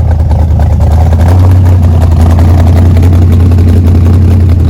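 1969 Ford Falcon XW GTHO's V8 engine idling, loud and steady.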